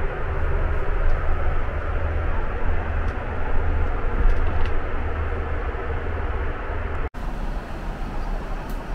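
Steady cabin noise of a Boeing 777-300ER airliner in flight: a deep rumble with rushing air over it. It drops out for an instant about seven seconds in, then carries on the same.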